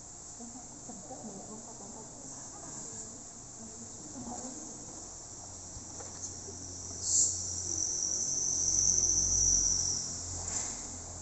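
Insects chirring in a steady high-pitched trill that swells about seven seconds in and holds for about three seconds before easing, with a brief sharp hiss as it rises.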